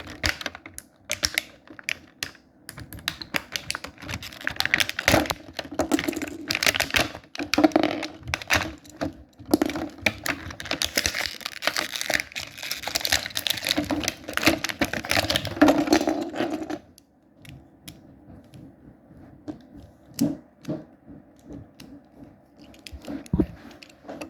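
Plastic packaging crinkled and torn open, with many quick clicks of small plastic parts being handled. The busy stretch stops abruptly about seventeen seconds in, leaving only occasional clicks.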